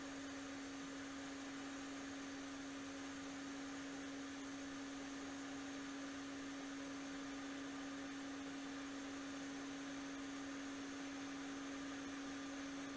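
Hot air rework gun running and blowing on a thermocouple probe: a steady hum over a faint airy hiss.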